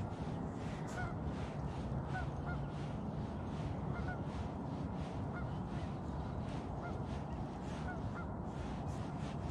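Geese honking: short faint calls repeating irregularly, about one every half second to a second, over steady low background noise.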